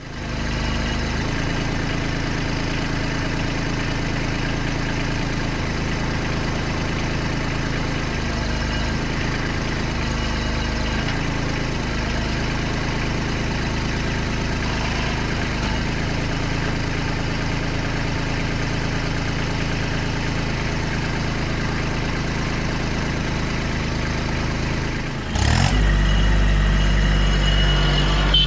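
Kubota LX2610 compact tractor's three-cylinder diesel engine running steadily, its note shifting now and then. About 25 seconds in it briefly dips, then comes back louder and deeper.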